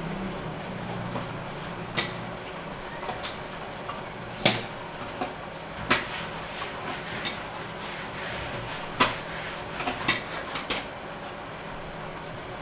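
Plastic clicks and knocks as a housing wrench loosens the pre-filter housings of a reverse-osmosis water filter and the housings are handled: scattered sharp taps, about eight to ten over the stretch.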